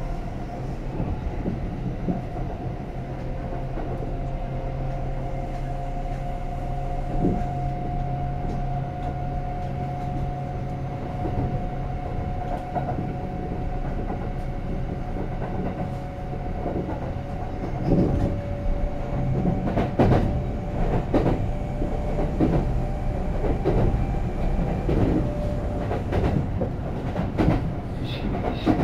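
Running sound inside a Kintetsu 9020 series electric train: the Mitsubishi IGBT VVVF inverter gives two long, nearly steady tones over the rumble of the wheels on the rails. From a little past the middle, the wheels clack sharply and irregularly over rail joints and points.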